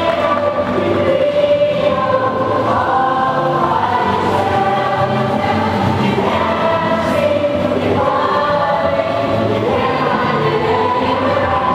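Music with a choir singing long, held notes that move from chord to chord.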